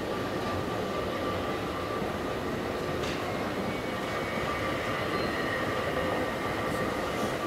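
Steady mechanical hum and rumble of a moving escalator, with the constant background noise of a large terminal hall.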